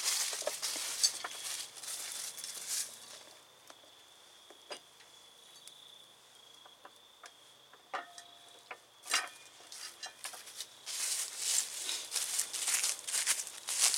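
Footsteps crunching through dry fallen leaves, then a quieter stretch with a few sharp clicks, then footsteps through the leaves again near the end.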